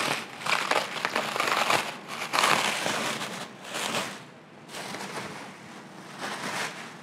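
Plastic stretch wrap crinkling and rustling as it is peeled off by hand and bunched up, an irregular run of crackles, loudest a little over two seconds in and softer toward the end.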